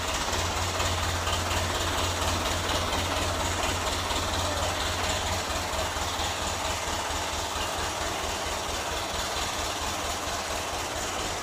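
Kubota M-series farm tractor's diesel engine running steadily as the tractor moves off slowly, a constant low rumble.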